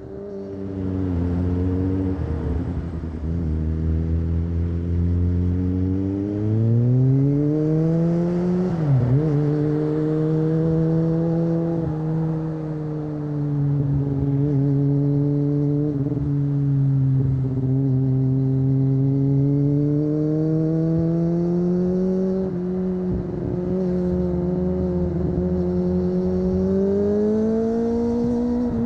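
Kawasaki ZX-25R inline-four with an Akrapovic exhaust, heard from the bike while riding. The engine note is low and steady at first, then climbs under throttle about six seconds in. It dips sharply for a moment near nine seconds, then holds fairly level with small rises and falls, and climbs again near the end.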